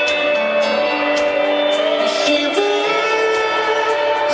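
Live pop-rock band music: guitar playing under long held sung notes, with a new sung line sliding in at the end.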